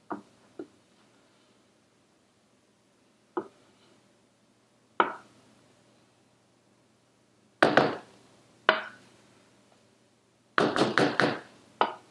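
Spatula knocking and tapping against a stainless steel mixing bowl as batter is scraped out. The sharp knocks come singly at first, then in a quick run of several taps near the end.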